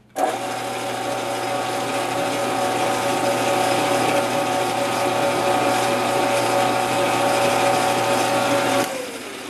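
Small metal lathe switched on, its motor and gear train running at a steady pitch while a reamer is fed into the bore of a spoked wheel casting. About nine seconds in it is switched off and winds down, its tone falling.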